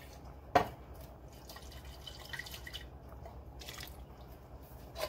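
Water poured from an emptied bean can into a pot of chili, dripping and dribbling, with a sharp knock about half a second in and a smaller one near the end.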